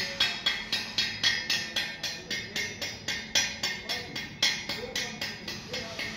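Background music with a quick, steady percussive beat, about four beats a second.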